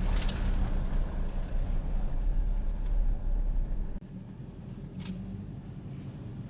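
Low, steady rumble of a vehicle on the move, easing off about four seconds in.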